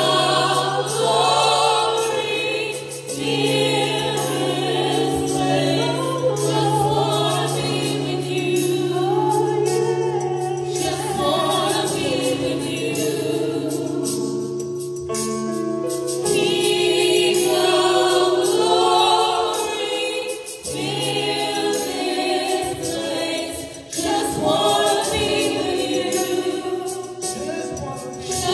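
Small gospel vocal group of women singing in harmony into microphones, with a sustained low note under the voices through much of the first half.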